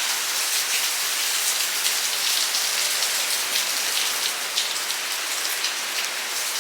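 Heavy hurricane rain falling steadily and pattering on surfaces, with individual drops spattering close by.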